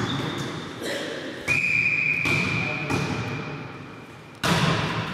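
Volleyball rally in a large echoing sports hall: the ball struck hard about a second and a half in and again near the end, with smaller hits between. A steady high tone rings out after the first hard hit and fades over about three seconds.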